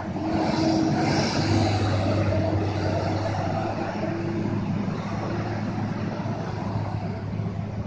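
Road traffic on a bend: concrete mixer trucks' diesel engines running steadily, with a car and motorcycles passing close by, loudest from about half a second to two and a half seconds in.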